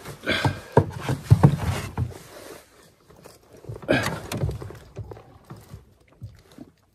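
Knocks and thumps against a canoe hull with rustling, from handling a large northern pike just landed in the boat: a busy cluster in the first two seconds or so, another about four seconds in, then only light ticks.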